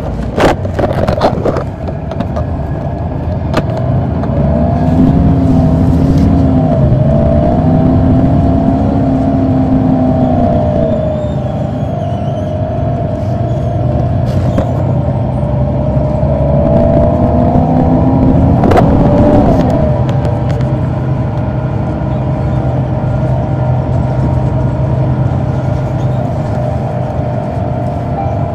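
Caterpillar C9 ACERT diesel of an articulated Neoplan AN459 transit bus, heard on board under acceleration. Its howling note climbs in pitch, drops as the ZF automatic transmission shifts up, climbs again and drops, then holds steady at cruise. A few sharp rattles come in the first two seconds.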